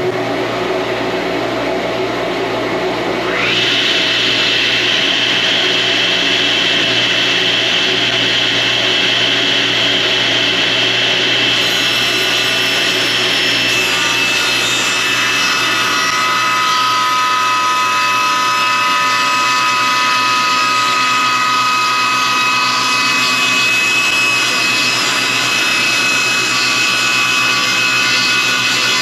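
Laguna Fusion F1 table saw running with its factory blade, ripping a white oak board. About three seconds in the sound steps up and a high steady whine sets in as the blade works through the hardwood, and the cut continues steadily.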